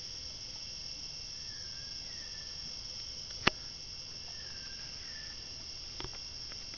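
Rainforest insect chorus, a steady high-pitched drone, with a faint wavering note repeating every second or so. A single sharp click cuts in about three and a half seconds in, with a softer one near the end.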